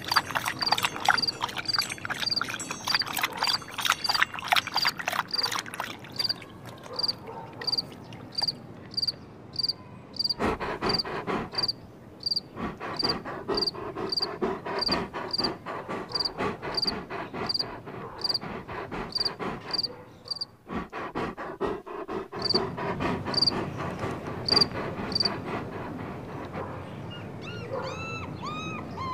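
Crickets chirping steadily, about two chirps a second, over a layer of outdoor ambience.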